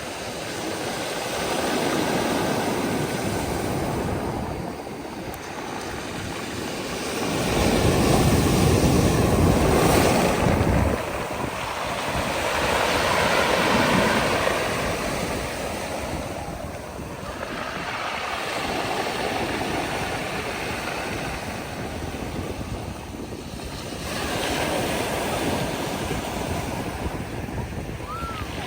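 Black Sea surf breaking and washing up the beach, swelling and fading every few seconds. The loudest wave comes about eight seconds in, with a deep rumble.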